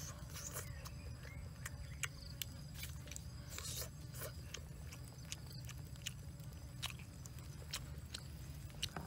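Eating a whole grilled fish by hand: skin and flaky flesh being picked and torn apart, with biting and chewing heard as many short, irregular clicks over a steady low rumble.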